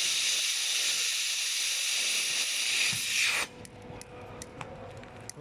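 Fiber laser welder hissing steadily while welding 1.5 mm copper, cutting off suddenly about three and a half seconds in. Faint clicks and a low steady hum remain after it stops.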